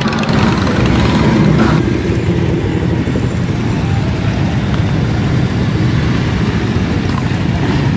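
Many motorcycle engines, mostly cruiser bikes, running together as a group rides slowly past: a steady, dense engine sound.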